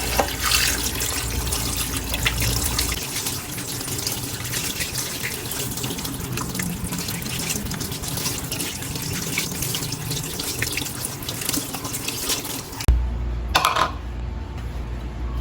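Tap water running into a sink, splashing steadily, then stopping suddenly near the end.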